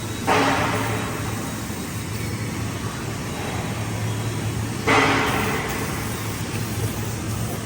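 Paint-spraying machine running with a steady low hum while red primer is sprayed onto steel beams, with a sudden louder burst about a third of a second in and again about five seconds in, each fading over a second or two.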